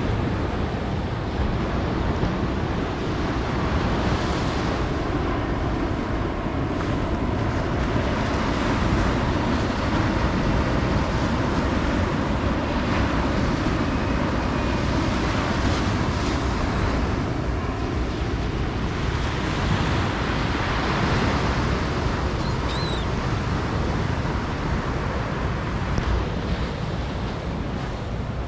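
Ocean waves breaking and washing up a beach: a continuous rush of surf that swells every few seconds, with wind rumbling on the microphone.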